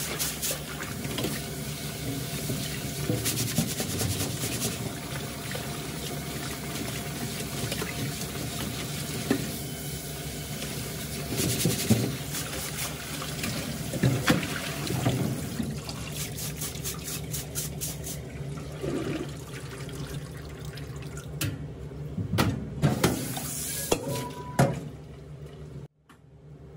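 Tap water running and splashing into a stainless-steel sink as rice is rinsed in a mesh strainer and the cloudy rinse water drains into a steel bowl, with sharp metal knocks of the bowls against each other and the sink now and then, several near the end. A steady low hum runs underneath.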